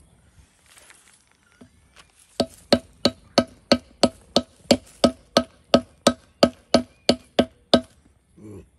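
A claw hammer striking a geode in a plastic zip-top bag on a concrete curb. There is one sharp knock, then a steady run of about seventeen knocks, roughly three a second, each with a slight ring.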